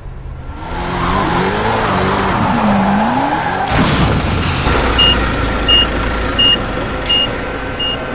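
Dubbed car sound effects: an engine revving up and down with tyre screech, then a crash about four seconds in. Afterwards a high reversing-alarm beep sounds five times, evenly spaced.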